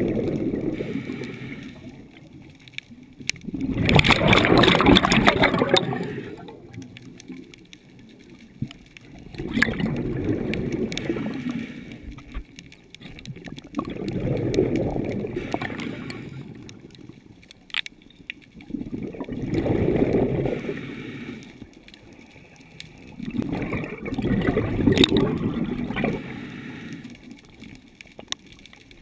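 Scuba diver breathing through a regulator underwater: exhaled bubbles rush out in six gurgling surges about every five seconds, with quieter hiss between them. The surge about four seconds in is the loudest.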